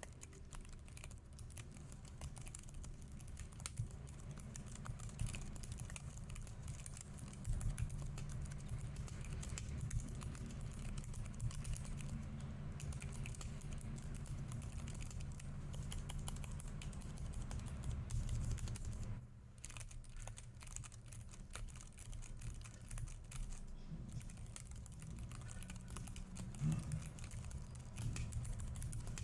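Typing on a Keychron K3 V2 low-profile keyboard with optical switches: a continuous, rapid patter of keystrokes, with a brief pause about two-thirds of the way through.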